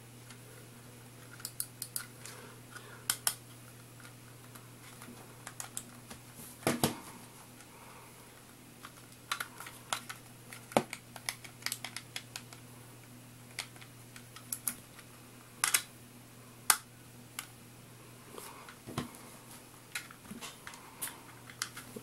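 Irregular small plastic clicks from a new wireless gaming mouse being handled, switched and button-clicked while it fails to respond. A low steady hum runs underneath.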